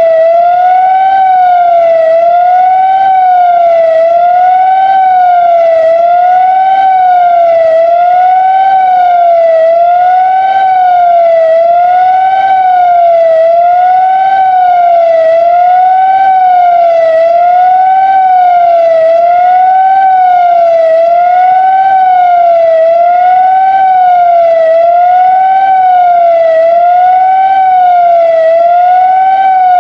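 Whelen 2016 electronic outdoor warning siren sounding its fast wail test signal: one loud tone rising and falling about once every two seconds, steady in volume.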